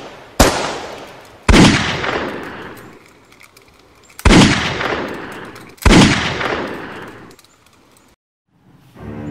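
Four pistol shots, unevenly spaced over about six seconds, each ending in a long echoing decay. Music starts just before the end.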